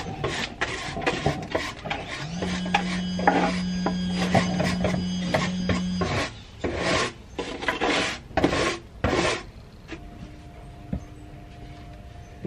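Rough rubbing and scraping strokes, irregular, about two a second, stopping about nine and a half seconds in. A steady low hum sounds under them for a few seconds in the middle.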